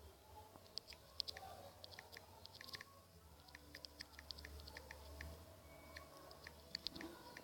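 Faint, quick, irregular clicks of a phone's touchscreen keyboard as a message is typed, a few taps a second in short runs.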